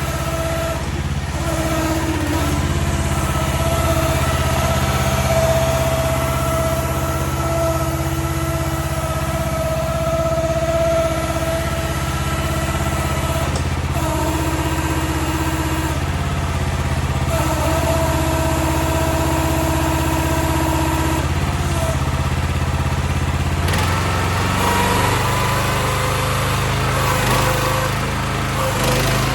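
Small gasoline engine of a towable mini excavator running steadily, with a higher tone that cuts in and out several times and a change in the engine note about three-quarters of the way through.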